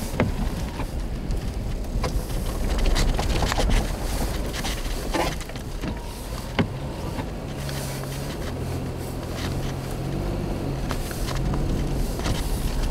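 Inside the cabin of a Nissan Xterra driving slowly on a snow-covered road: steady engine and road rumble with scattered knocks and clicks. A low, even engine hum comes up through the second half.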